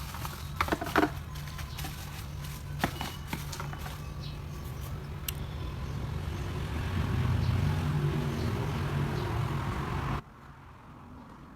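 Sharp clicks and taps of small tools and parts being handled during phone repair work, over a steady low hum. The hum grows louder after about six seconds and cuts off suddenly about ten seconds in.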